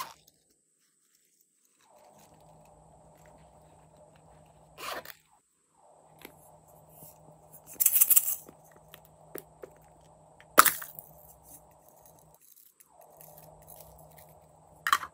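Glossy slime being squished as hands press plastic toy cases into it in a plastic basin. There are a few louder wet squelches and crackles, a cluster near the middle and a sharp one soon after.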